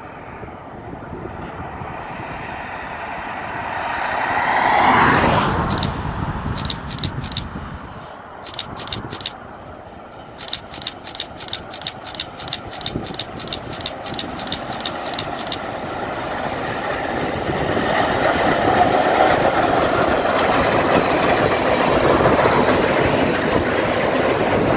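A Canon T5 DSLR shutter fires very loud right at the microphone: a few single shots, then a rapid burst of about four clicks a second for some five seconds. Behind it is a whoosh that swells and fades about five seconds in. In the last several seconds the running noise of the SP 4449 steam passenger train grows loud as the train passes close.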